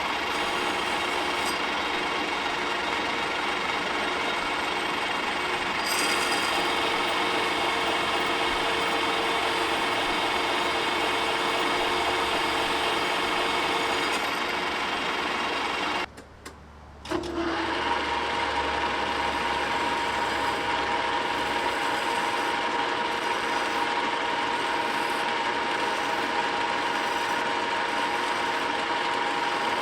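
Metal lathe cutting steel: a steady cutting noise with a faint whine. It breaks off briefly a little past halfway, then goes on with a steadier, higher whine.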